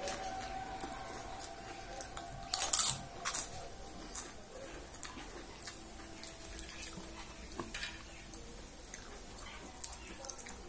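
Eating by hand: wet chewing and mouth clicks, then fingers mixing millet khichdi on a steel plate, with a louder burst of clicks about two and a half seconds in.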